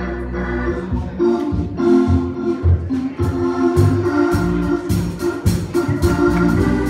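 Gospel band with an organ playing held chords, with drums and cymbals coming in about a second in and a steady beat building.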